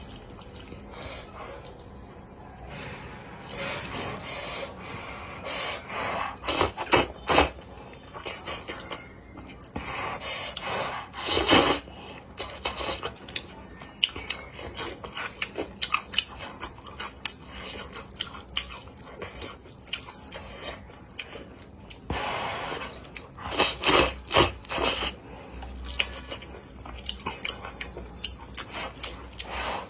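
Close-miked eating of spicy noodles: chewing with repeated short, loud slurps, the strongest about a third of the way in and a cluster near the end.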